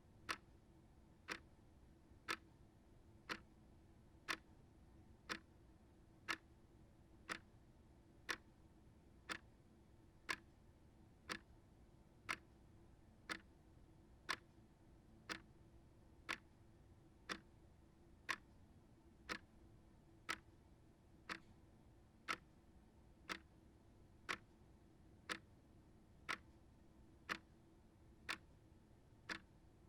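Small shelf clock ticking steadily, about one tick a second, the strokes alternating slightly louder and softer as tick and tock.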